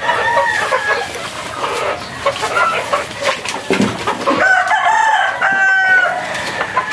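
A flock of chickens clucking, and a little past halfway a rooster crows once, a crow of about two seconds with a short break in it.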